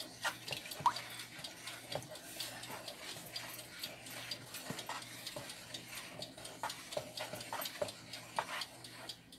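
Wooden spoon stirring a thick coconut and condensed-milk mixture in a plastic bowl: irregular light scrapes and taps against the bowl, with a short squeak about a second in.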